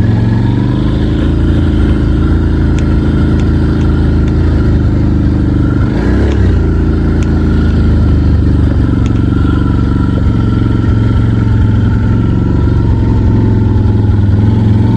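Can-Am ATV engine running steadily as it rides a snowy trail, with a brief change in engine note about six seconds in and a few light clicks.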